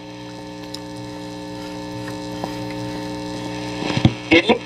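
Steady mains hum with a stack of overtones from the speaker of a 1950 Philips BX200U valve radio as it is tuned across the shortwave band. A few short crackles come through about four seconds in.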